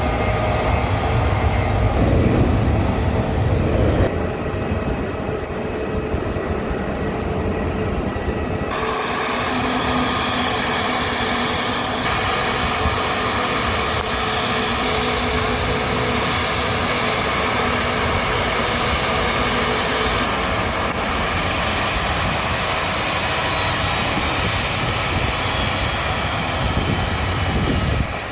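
An Airbus A321neo airliner's jet engines running, a steady whine over a rumble, with a wider hiss joining about nine seconds in.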